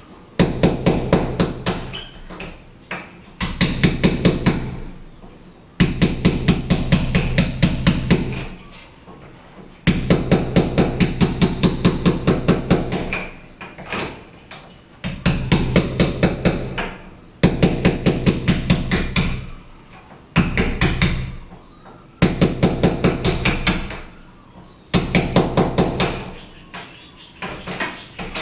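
Hammer lightly tapping a chisel into the mortar joint between glass blocks, quick taps about four a second in runs of a few seconds with short pauses. The mortar is being chipped out between small drilled holes to weaken the joint around a cracked glass block before the block is broken out.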